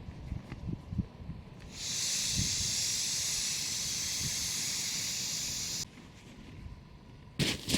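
A steady, high-pitched hiss that starts suddenly about two seconds in, holds for about four seconds, then cuts off, with a few soft knocks before it.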